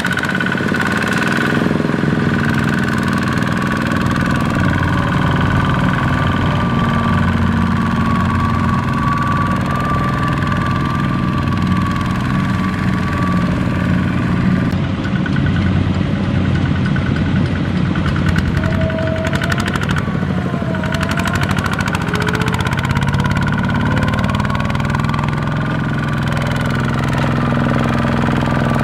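Two-wheel walking tractor's single-cylinder diesel engine running steadily under load as it works the stuck machine and its loaded trailer through mud. Its pitch briefly rises and falls about two-thirds of the way through.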